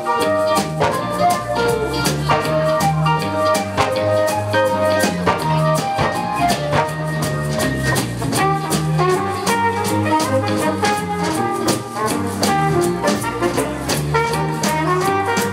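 Live big band playing a swing instrumental: trumpets, trombones and saxophones over a drum kit, with short, clipped electric bass notes in the knackbass style.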